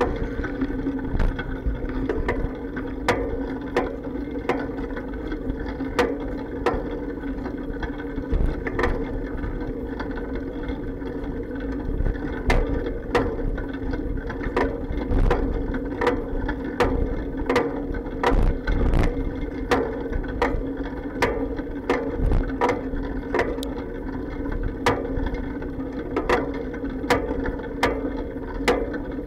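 Bicycle ride noise carried through an action camera's waterproof case mounted on the bike: a steady rolling hum with frequent irregular clacks and bumps as the bike jolts over the pavement.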